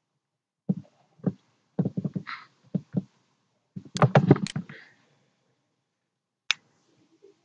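Computer mouse clicks and light knocks on the desk in short irregular bursts, busiest around four seconds in, with one sharp single click near the end.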